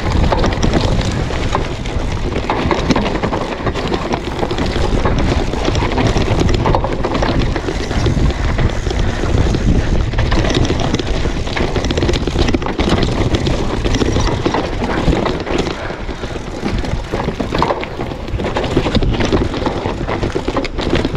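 Mountain bike riding down a dry dirt trail: knobby tyres rolling over dirt and the bike rattling over bumps. Wind buffets the microphone throughout.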